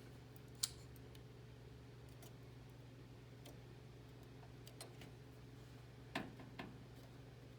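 Near silence over a steady low hum, broken by a few light clicks of hardware being handled: one about half a second in and two close together near the end, as the graphics card's seating in its slot is checked.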